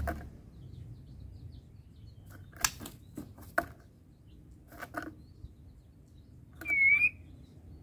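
White-rumped shama (murai batu) giving a few sharp, separate call notes, then one short whistled note near the end, the loudest sound.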